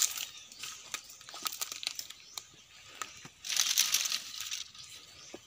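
Dry palm fronds rustling and crackling as they are pushed aside by hand, with a louder stretch of rustling about three and a half seconds in.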